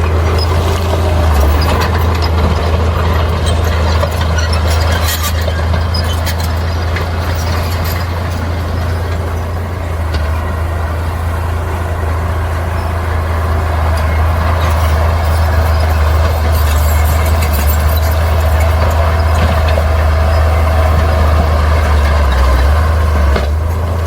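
Heavy diesel earthmoving machinery running steadily with a deep, constant drone, and a few short sharp higher noises over it.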